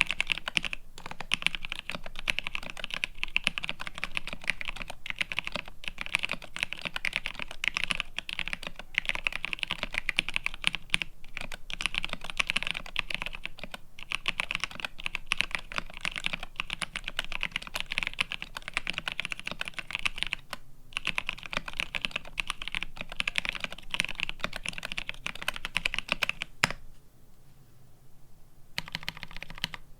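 Fast, continuous typing on a GRID650 mechanical keyboard with Paco tactile switches, plateless PCB mount and GMK keycaps. The keystrokes pause briefly for about two seconds near the end.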